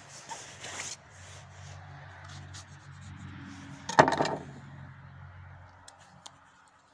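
Hands handling and cutting a tomato, with soft rubbing, then a kitchen knife set down on a wooden table with one sharp clack about four seconds in.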